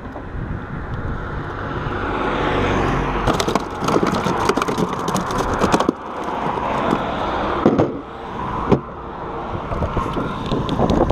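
A car passing on the road close by, its tyre and engine noise swelling over the first few seconds. Over it come sharp clicks and knocks from gear being handled, with a flurry in the middle and single knocks later.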